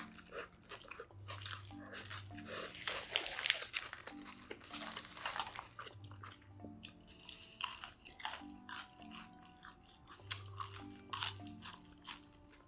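Close-up crunchy bites and chewing, many sharp crunches one after another, over quiet background music with a repeating low melody.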